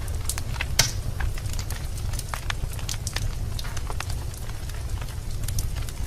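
Wood fire in a fireplace crackling: irregular sharp pops over a steady low rumble, with one louder pop just under a second in.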